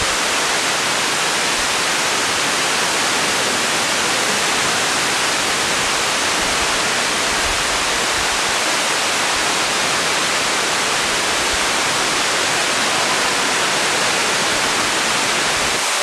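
Tall waterfall plunging down a cliff face into a pool: a steady, dense rushing hiss of falling water.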